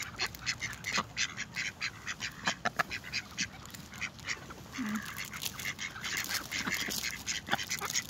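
A flock of ducks, mallards and a white domestic duck, quacking in many short calls that come quickly one after another and overlap.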